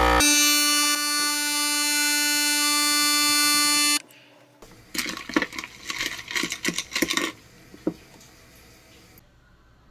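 A loud, steady electronic buzzing tone that cuts off abruptly after about four seconds, followed a second later by a flurry of light clicks and knocks.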